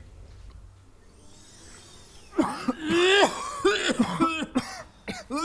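Men coughing and spluttering hard, several times, beginning about two seconds in after a quiet start.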